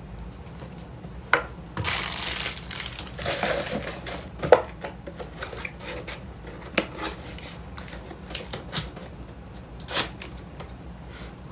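Handling noises of a plastic collectible figure and its cardboard box on a table: scattered sharp taps and knocks, the loudest about four and a half seconds in, with short rustling about two and three and a half seconds in.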